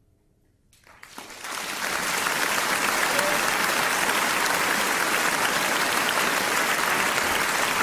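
Applause that begins about a second in, builds quickly and then holds steady and loud.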